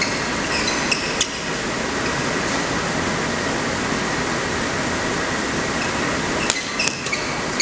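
Steady whoosh of a sports hall's ventilation. About a second in and again near the end it is broken by a few sharp taps of rackets striking a shuttlecock and short squeaks of shoes on the court.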